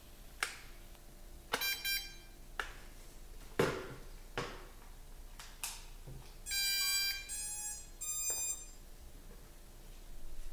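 Clicks from the Drocon Bugs 3 drone and its transmitter being handled, with electronic beeps: a short beep about two seconds in and a run of beeps past the middle. The beeps sound, but the motors do not spin up.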